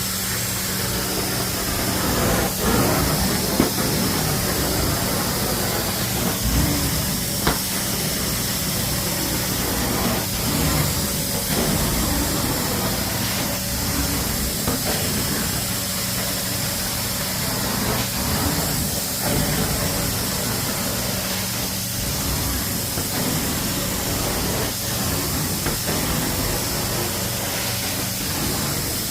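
Carpet-cleaning machine running steadily: a loud hiss over a constant low motor hum, with a few short knocks.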